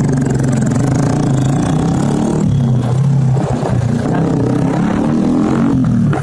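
Sport motorcycle with an aftermarket 'blue head' exhaust running loud while riding, its engine note rising and falling with the throttle.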